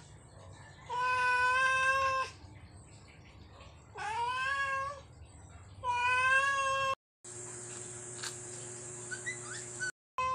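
Tabby cat meowing loudly three times, each a long drawn-out meow, the second rising in pitch. Then a quieter stretch of steady hum and hiss with a few faint clicks.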